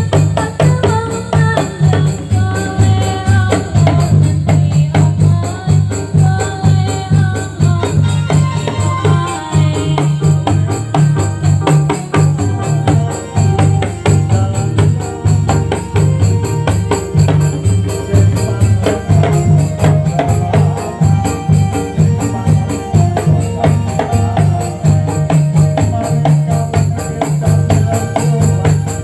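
Dolalak dance music: a steady heavy drum beat with fast, continuous tambourine-like jingling and a melody line over it.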